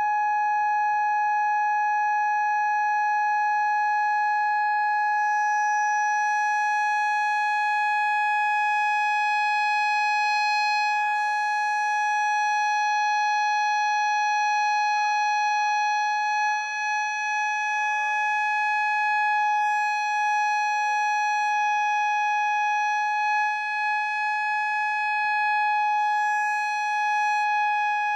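Loud, steady single-pitched tone with overtones from a loudspeaker driven by a wave generator and amplifier. The tone is being tuned to the glass beaker's resonant frequency to set the beaker vibrating.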